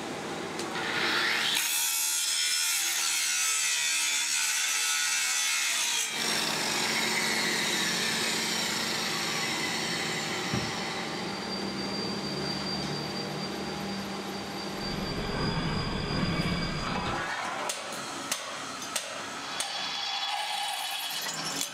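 Angle grinder grinding cast-iron pump castings: a harsh, steady grinding noise for several seconds, then mixed machine noise with a faint whine. Near the end come a few sharp knocks, then a drill boring into cast iron.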